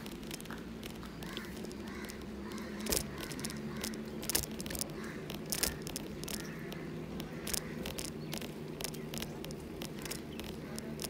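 Bicycle ride noise on a jointed concrete path: a steady low hum with irregular clicks and knocks throughout.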